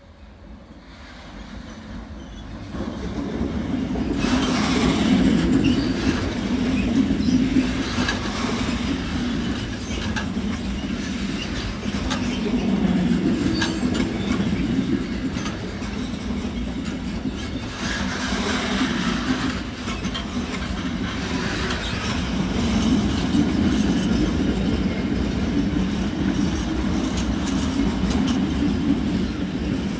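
Freight train hauled by a DB Cargo class 189 electric locomotive, growing louder over the first four seconds as it comes near. Its sliding-wall wagons and car-carrier wagons then roll past with a steady rolling noise and irregular wheel clicks over the rail joints.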